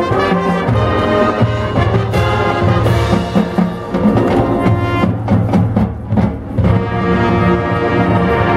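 Marching band playing: the brass section holds loud chords over drums and timpani, with a run of sharp percussion hits around the middle before the brass settles onto another sustained chord.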